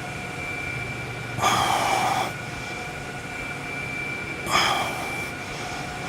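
A person exhaling hard twice, about three seconds apart, as if breathing through squat repetitions, over a steady background hum.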